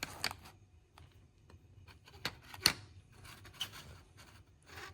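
Small clicks and short scrapes of model locomotive parts and a hobby tool being handled, with two sharper clicks a little past halfway.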